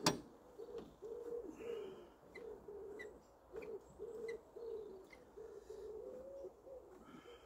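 A pigeon cooing over and over: a steady run of soft, low coos.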